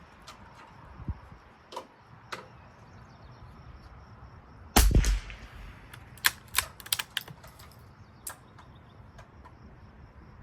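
.22 rimfire rifle firing a single loud shot about five seconds in. A quick run of sharper, fainter cracks and clicks follows it.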